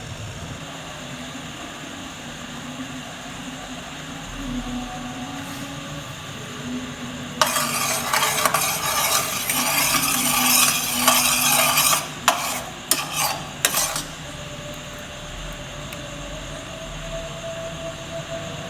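Kitchen cooking noise. A loud hiss starts about seven seconds in and lasts about five seconds, then breaks into a few short bursts, over a low steady hum.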